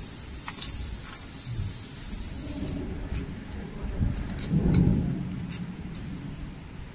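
Hands-on adjustment work at a wire-feeding machine. A steady hiss fades out a few seconds in, then come scattered sharp clicks and knocks, with a low hum swelling around the middle.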